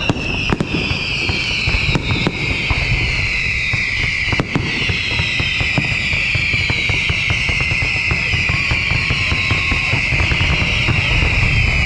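Fireworks display: a dense, continuous high whistling that slides slowly down in pitch, over a steady low rumble of bursts with many sharp bangs and crackles.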